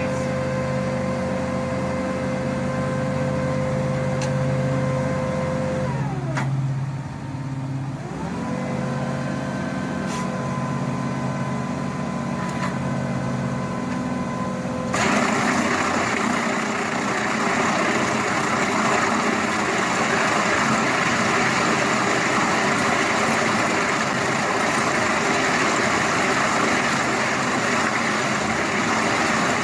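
Diesel engines of construction machinery running. The first engine drones steadily, its revs drop and come back up about six to eight seconds in, and about halfway through it gives way abruptly to a louder, rougher machine noise.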